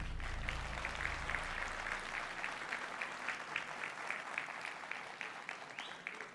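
Audience applauding, the clapping slowly dying away. A low musical rumble fades out under it in the first two seconds.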